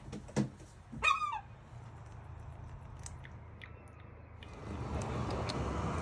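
A knock, then a herring gull's short descending squawk about a second in. From about four and a half seconds a steady low rushing noise comes up.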